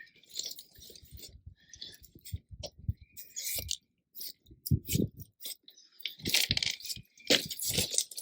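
Irregular gritty scraping and crunching of stone being worked by hand, with a few low knocks. It gets louder and busier about six seconds in.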